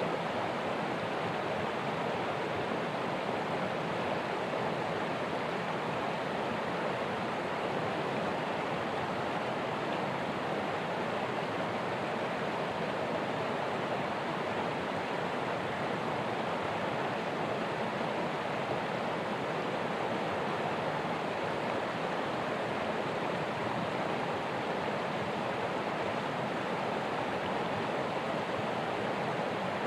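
Steady, even rushing noise that holds unchanged throughout, with no distinct events in it.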